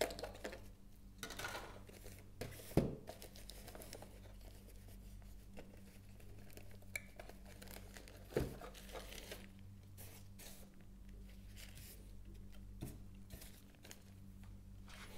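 Clear plastic packaging being handled as a model freight car is unpacked: a thin plastic film crinkles as it is pulled off, with a few sharp plastic clicks, the loudest about 3 seconds and 8 seconds in. The sound is faint throughout.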